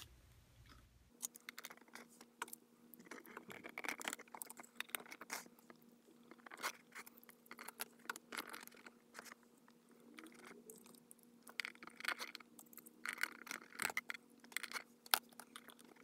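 Faint, irregular clicks, taps and brief scrapes of plastic suction-cup toy figures being handled and pressed onto the pages of an activity book.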